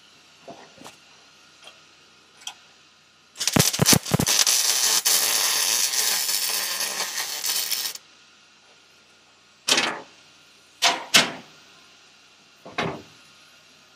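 MIG welder arc on sheet steel: a few stuttering starts, then a steady crackling hiss for about four seconds as a weld is run. Afterwards come several sharp metal clicks and clanks from tools being handled and set down.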